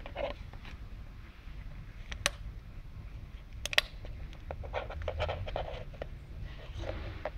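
Empty plastic water bottle crackling and clicking as a cat bites and claws at it: a sharp crack about two seconds in and a louder one near four seconds, then a run of crinkling crackles. A steady low rumble runs underneath.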